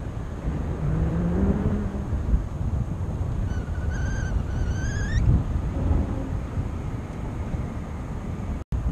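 Wind rushing over an action-camera microphone on a paraglider pilot in flight. In the middle a short wavering high tone is heard for under two seconds, and just before the end the sound cuts out for a split second.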